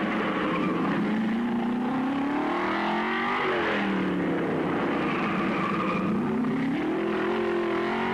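1950s Grand Prix racing car engines running hard, their pitch rising and falling several times as the cars accelerate and pass.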